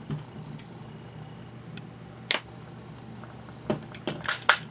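Fingers handling a vintage plastic Tomy Karate Robot while pressing small rubber bumpers into its back: a sharp click about two seconds in, then a quick cluster of clicks and taps near the end, over a steady low hum.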